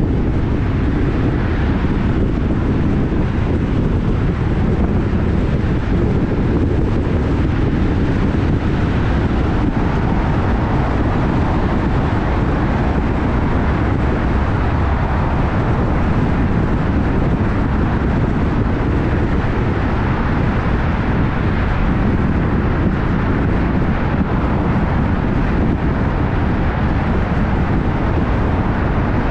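Steady low rumble and wind noise of a moving vehicle, unbroken throughout.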